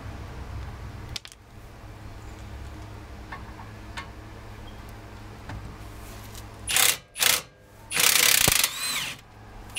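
Milwaukee cordless power tool run on the 17 mm bolts holding a front brake caliper, removing them: two short bursts close together about seven seconds in, then a longer run of about a second with a motor whine that rises and falls.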